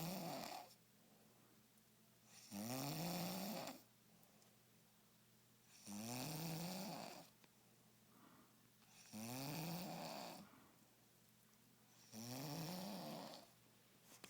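Regular snoring: a snore about every three and a half seconds, each lasting over a second and rising in pitch, with quiet between them.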